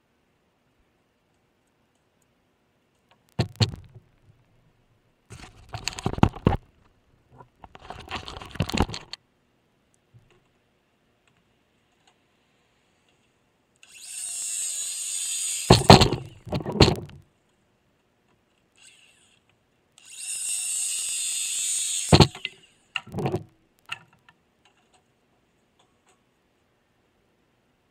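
2x4 lumber being handled and set down on sawhorses with several wooden knocks. Then a Ryobi cordless circular saw makes two cuts of about two seconds each through a 2x4, each cut ending in loud knocks.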